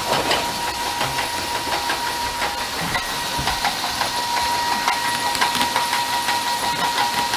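Grain auger running with barley pouring out onto a pile: a steady hiss of falling grain with many small ticks, over a steady whine from the machine.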